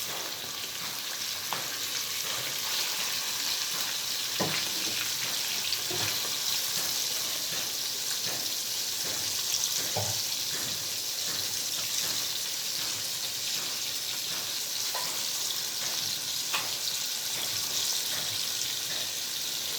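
Chicken karchi-marchi frying in a pan with a steady sizzle, cooking down to dry off its water, with a few clinks of the stirring spoon against the pan.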